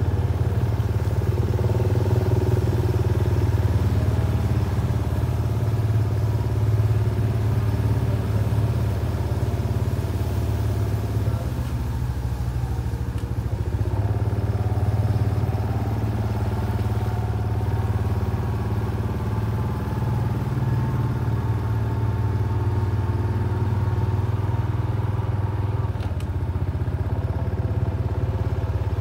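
Motorcycle engine running steadily at low speed while riding, easing off briefly about twelve seconds in and picking up again.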